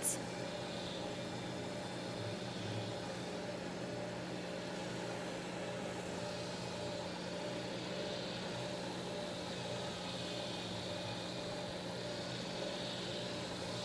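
Drum sander running steadily with a constant low hum while the hub of a wooden airplane propeller is sanded against its drum.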